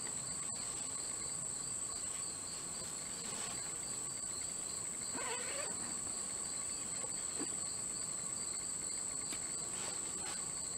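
Insects singing in the woods: a steady, high-pitched drone with a fainter pulsing trill beneath it. It cuts off suddenly at the end.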